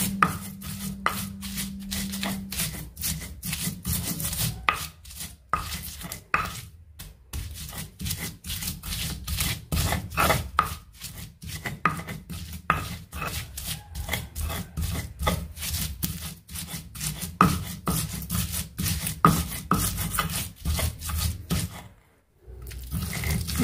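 Stone pestle crushing and grinding chillies and shallots against a stone mortar (cobek and ulekan): quick, repeated grinding strokes, with a short stop near the end. The sambal is being ground down to a smooth paste.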